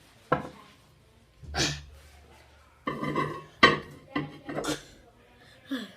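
Dishes clattering: a bowl handled and knocked against hard surfaces, with a click near the start and a run of sharp knocks about three to five seconds in.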